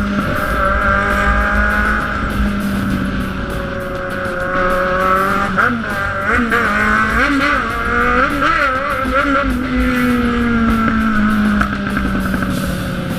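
Inline-four sport motorcycle engine under way, pitch steady at first, then blipped up and down several times in quick succession about halfway through. The revs then ease off and slowly fall near the end. Wind rush is on the helmet or bike camera throughout.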